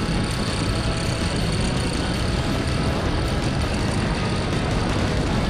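Motorcycle ridden at speed, heard from on board: the engine runs under steady load behind a thick rush of wind noise, with no clear gear changes or revving.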